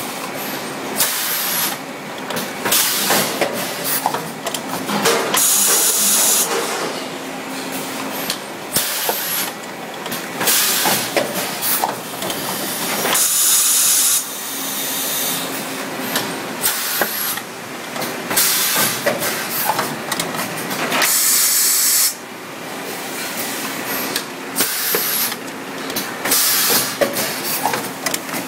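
Plastic blow moulding machine running through its cycle: a loud hiss of compressed air about every seven or eight seconds, with mechanical clatter and clicks between, over a steady hum.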